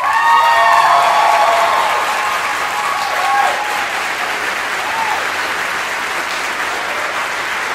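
Audience applauding and cheering as a song ends, with whoops and shouts loudest in the first two seconds, then steady clapping.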